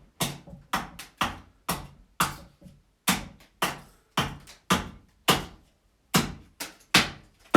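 Axe hewing a wooden blank, striking it with quick, regular sideways cuts around its perimeter to shape it roughly cylindrical: a steady run of sharp knocks, about two a second.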